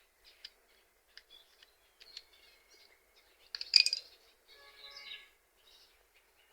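Small clicks and clinks of a car key's shell and parts being handled, with one sharper clatter about four seconds in, followed by a short chirping call.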